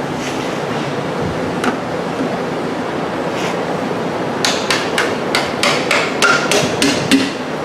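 Hammer striking metal: one blow about two seconds in, then a quick run of about ten ringing blows near the end, over a steady hiss. The old oil pan is being knocked loose from its silicone seal.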